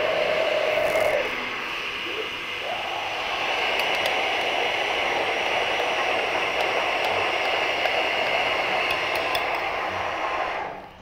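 Countertop blender motor running steadily, blending huancaína sauce with a piece of boiled potato to thicken it. The sound changes briefly between one and three seconds in, and the motor cuts off just before the end.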